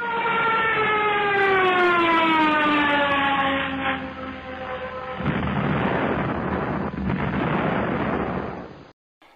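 Falling-bomb sound effect laid over the drone's crash: a whistle that glides steadily down in pitch for about five seconds, then an explosion for about four seconds that cuts off suddenly near the end.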